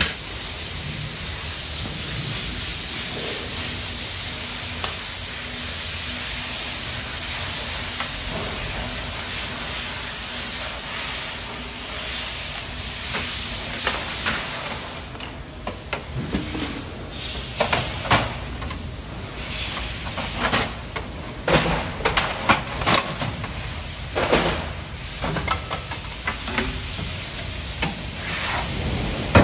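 Plastic and metal parts of a Konica Minolta bizhub C308 colour copier being handled during disassembly. A steady hiss fills about the first half, then come irregular clicks, knocks and sliding sounds as units are pulled and latches worked.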